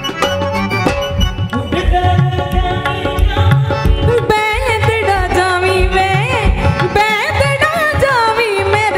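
Live Punjabi folk music: harmonium and drums play, then about four seconds in a woman's voice comes in singing, with wavering, ornamented notes over the accompaniment.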